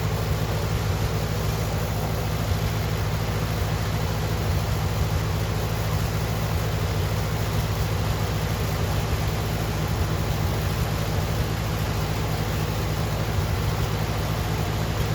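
An engine running steadily at a constant speed, a low even drone.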